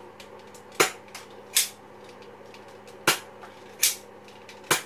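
Nerf Zombie Strike Quadrot spring-powered dart blaster being primed and fired repeatedly: five short, sharp clacks, roughly in pairs about three-quarters of a second apart.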